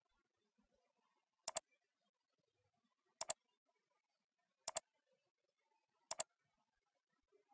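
Computer mouse double-clicked four times, each a pair of sharp clicks about a tenth of a second apart, the pairs a second or two apart, over near silence.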